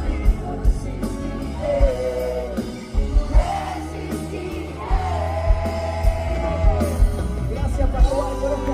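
Live pop-rock band playing, with long held sung notes over bass and a steady kick drum.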